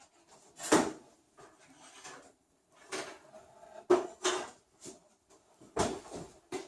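Kitchen handling noise: about five separate knocks and clatters of metal cake pans and the oven being worked, spread over several seconds with quiet gaps between.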